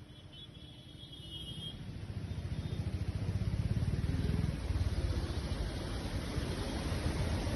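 Low rumble of road traffic, growing louder over the first few seconds and then holding steady, over the even hiss of heavy rain.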